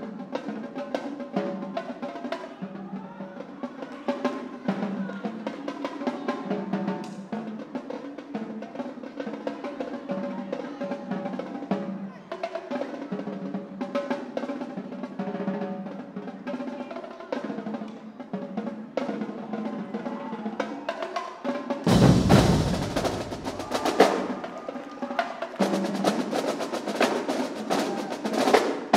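Marching drumline playing a fast cadence: snare rolls and tuned tenor drums in a tight pattern. About 22 seconds in, the line comes in much louder and fuller, with deep bass-drum hits under it.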